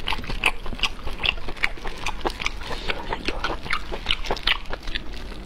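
Close-miked wet chewing and lip-smacking on rubbery cooked octopus, a quick, irregular run of mouth clicks several times a second. The octopus is tough, too tough to chew through.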